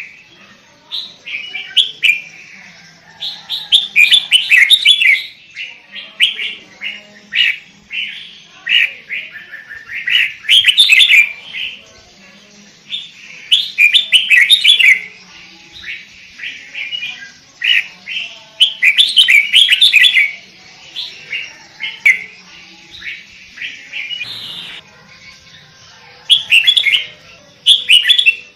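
Sooty-headed bulbul (kutilang) singing, loud bursts of quick, bubbly chirping phrases repeated every second or two.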